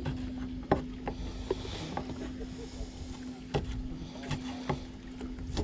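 Fishing boat at sea: a steady low engine hum under wind and water noise, with a few scattered short knocks.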